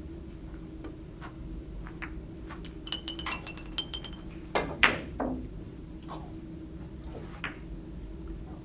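Billiard balls clicking together on a keglebillard table: a quick run of sharp clicks with a brief ringing tone about three seconds in, then a single louder knock a second later and a few scattered clicks after it.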